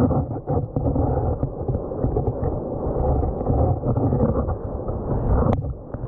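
Stream water rushing, heard through an underwater camera. It is a steady, dull, muffled rumble with almost no treble.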